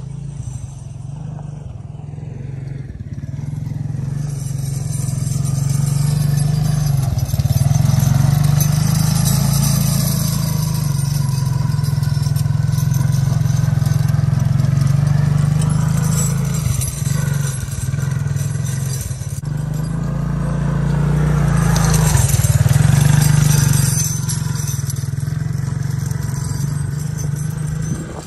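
ATV (four-wheeler) engine running steadily at low speed while towing a chain harrow across a lawn. It grows louder as the machine comes near, swells again about two-thirds of the way through, and fades near the end as it drives away.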